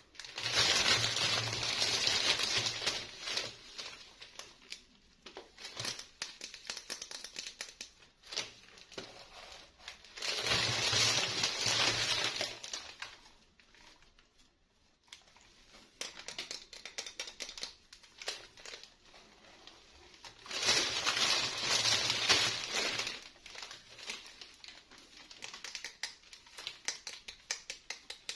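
Plastic packaging crinkling as it is handled and opened, in three loud bursts of two to three seconds each, with small clicks and rustles in between.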